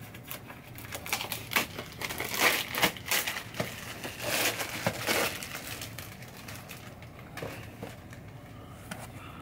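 Plastic mailer bag crinkling and rustling as it is opened and a box is pulled out of it: busy irregular crackling for the first five seconds or so, then only a few scattered crinkles.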